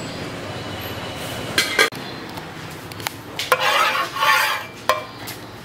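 Metal kitchenware clinking and clattering: an aluminium pot lid and a metal spatula knocking against cookware, a few sharp ringing clinks, then about a second of rattling and scraping in a pan about three and a half seconds in.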